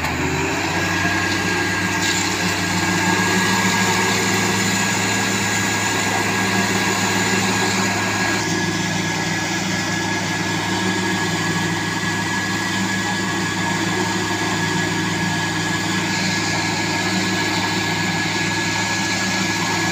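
Concrete mixer truck's diesel engine running steadily while the drum discharges concrete down the chute, with a steady high whine over the engine's low hum.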